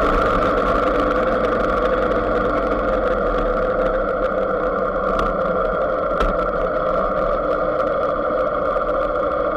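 Motorcycle engine running at a steady speed while riding, with a constant even drone.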